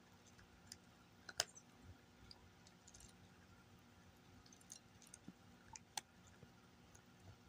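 Domestic cat eating dry kibble from a bowl: faint, irregular crunches and clicks, the sharpest about a second and a half in and again near six seconds.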